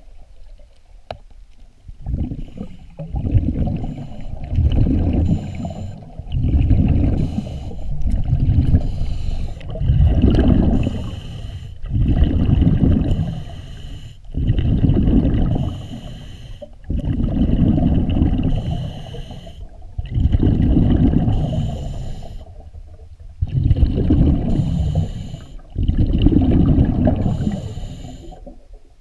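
Scuba diver breathing underwater through a regulator: the exhaled bubbles rumble in repeated bursts every two to three seconds.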